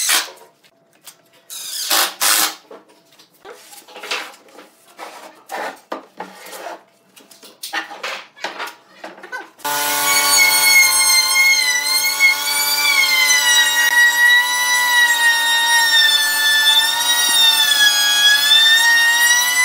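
A cordless impact driver drives screws into wood in short bursts, with knocks between them. About ten seconds in, a handheld electric router starts and runs continuously with a high whine whose pitch wavers as it trims the edge of a wooden tabletop.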